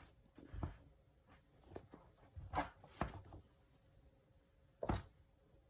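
A handful of soft knocks and clicks, about five in all, with the strongest near the middle and one shortly before the end: handling noise from a plastic Ghostbusters Slimer toy.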